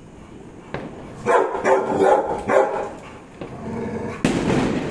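Rottweiler barking: a quick run of barks from about a second in, then a rougher, noisier burst near the end.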